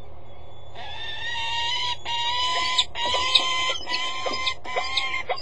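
Peregrine falcon calling: loud, harsh, drawn-out calls starting about a second in and repeating as several long notes, over a low steady hum.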